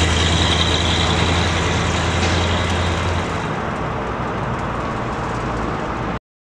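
1966 Ford Mustang's engine and exhaust running as the car pulls away at low speed; the low exhaust note fades as it gets farther off. The sound cuts off abruptly near the end.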